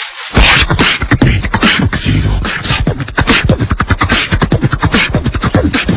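Beatboxing: a fast, irregular run of vocal clicks, snares and bass thumps, starting about half a second in.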